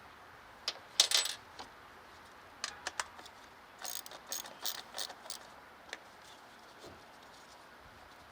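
Small metal parts clinking and clattering, with a loud clatter about a second in, a few single clicks, and then a quick run of clinks. These are tools and hardware being handled during intake-manifold work on an engine.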